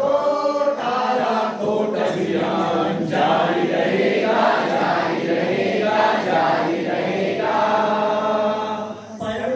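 A group of men singing a song together in unison, with a brief pause between lines near the end.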